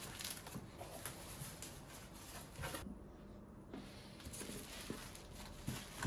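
Quiet rustling and light, irregular knocks of packaging being handled: cardboard box flaps and a plastic-wrapped bag of mopping pads lifted out of the box.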